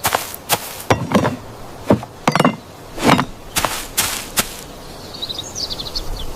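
A run of sharp knocks, about ten at uneven spacing over four seconds, then a few faint bird chirps near the end.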